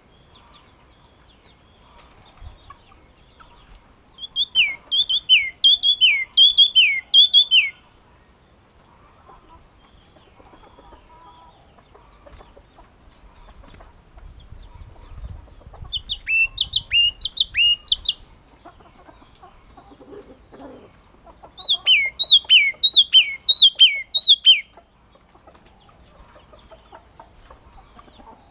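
A caged chi chi mào (crested tit of the Parus tits) singing three phrases of its song. Each phrase is a quick run of five to eight loud, high whistled notes that slur downward, about two to three notes a second, with quiet gaps of several seconds between phrases.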